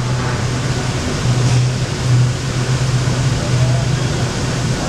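Water flowing in a steady rush across the flat, dark basin of an indoor fountain, with a steady low hum underneath.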